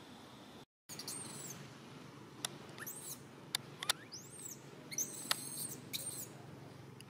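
Baby macaque screaming: about five shrill, very high calls that rise and fall, from about a second in until just after six seconds, with a few sharp clicks among them.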